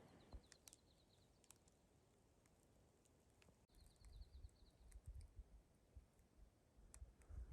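Near silence: quiet outdoor air with a faint, high, rapid trill heard twice, once at the start and again near the middle, plus a few faint ticks and a low rumble of wind on the microphone in the second half.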